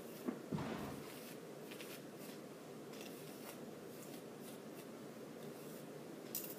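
Hairbrush strokes through a synthetic wig's hair: faint, irregular scratchy swishes about twice a second, with a single soft knock about half a second in.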